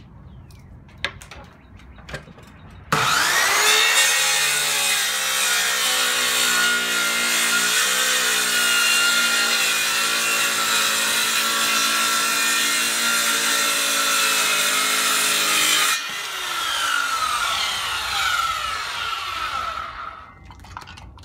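Corded handheld circular saw starting with a rising whine and running steadily, cutting wood, its pitch sagging briefly under load. About 16 seconds in it is switched off and winds down with falling pitch over several seconds. Two light knocks come before it starts.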